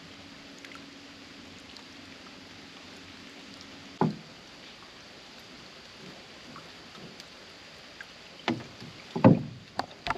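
Hollow knocks and thumps against a small boat's hull: a single sharp knock about four seconds in, then a cluster of four or five near the end, the loudest among them, over a steady quiet hiss.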